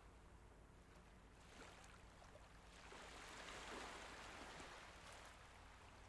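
Calm sea water lapping faintly, with a small wave washing in that swells about three seconds in and eases off near the end.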